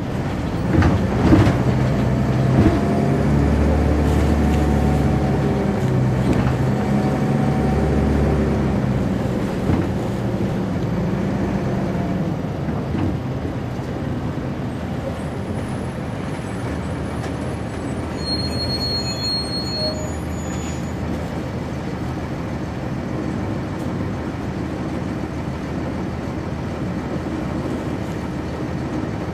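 Cummins ISC straight-six diesel of a 1999 NovaBus RTS transit bus heard from on board, its pitch climbing and dropping back several times through the ZF automatic's gear changes over the first dozen seconds, then running lower and steadier. A brief high-pitched tone sounds about two-thirds of the way through.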